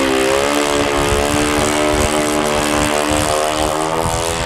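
Twin propeller engines of a large radio-controlled scale model of the Nakajima J1N Gekko running up to full throttle for the takeoff run. The pitch rises in the first second and then holds steady, with the two engines' notes slightly apart.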